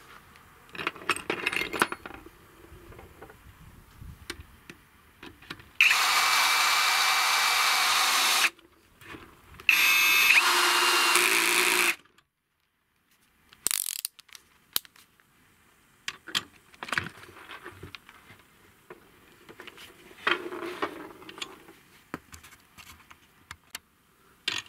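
Greenworks GD24DD60 brushless cordless drill run twice with no load, each time for two to three seconds, as an even whirr with a steady high whine. Between the runs come scattered metallic clicks of bits and sockets being handled.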